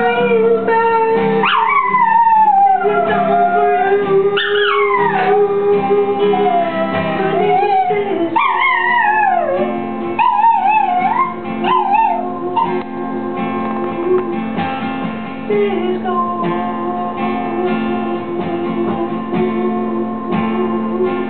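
A Chihuahua howling along to guitar music: several long howls that slide down in pitch, then shorter wavering ones, over steady held chords. The howling stops about two-thirds of the way through while the music carries on.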